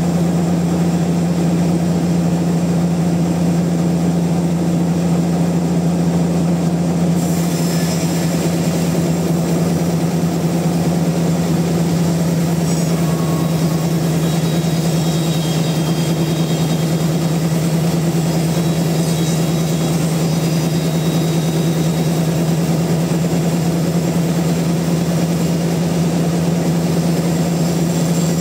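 Large sawmill machinery running steadily with a strong, even low hum; a higher hiss joins about seven seconds in.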